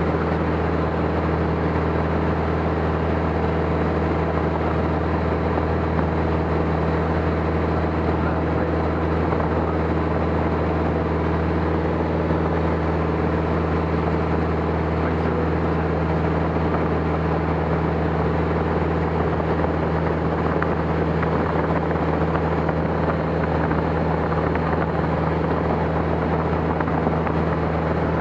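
Helicopter in steady flight: its engine and rotor give a constant low drone that stays even, with no change in pitch or level.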